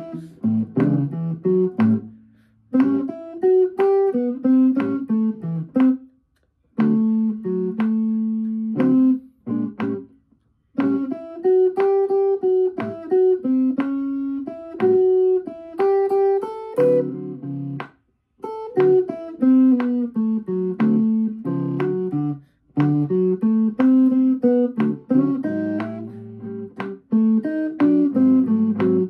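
Gold-top Les Paul Standard electric guitar played solo in a blues style: phrases of plucked single notes and short chords, with brief pauses between phrases.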